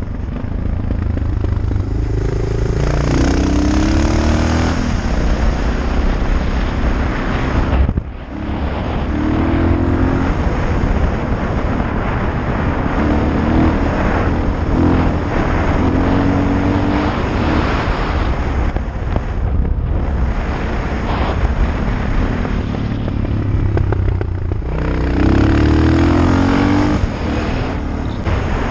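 Suzuki DR650SE's single-cylinder four-stroke engine, breathing through an FMF Powerbomb header and FMF exhaust, pulling hard under acceleration, its pitch climbing in several pulls through the gears with a brief drop about eight seconds in. Wind rush on the microphone lies under the engine.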